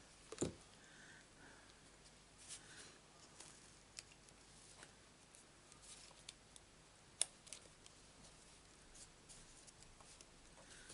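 Faint handling sounds of paper crafting: scattered small clicks, taps and rustles as a glued anchor embellishment is pressed onto a card, with one sharper click about seven seconds in.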